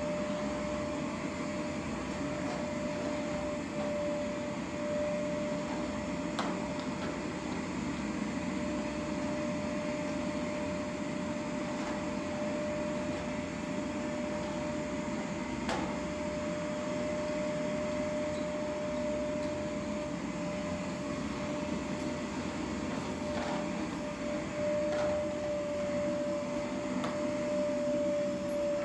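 Steady mechanical hum with one constant tone running through it, and a couple of faint clicks.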